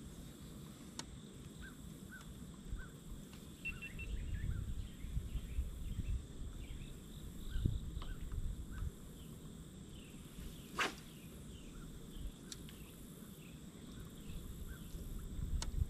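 Riverside outdoor ambience: small birds chirping faintly and an insect drone holding one high note, over a low rumbling noise that swells in the middle. A few sharp clicks sound, the loudest about eleven seconds in.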